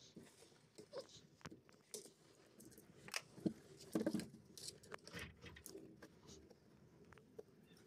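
Small clicks, taps and scrapes of a vacuum cleaner's electric motor being handled and taken apart with a screwdriver on a wooden plank, with a cluster of louder knocks about three to four seconds in.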